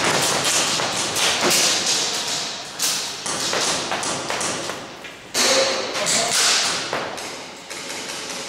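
Airsoft guns firing and BBs striking: sharp pops, taps and thuds at irregular intervals, several close together, the loudest a little past halfway.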